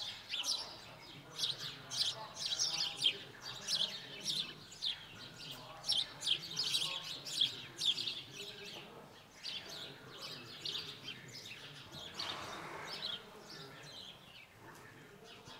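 Small birds chirping, a busy run of many short, high chirps that thins out in the last few seconds.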